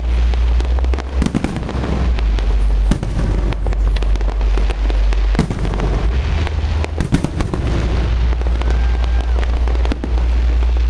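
Fireworks display: aerial shells bursting one after another in a dense run of bangs and crackles, over a steady low rumble.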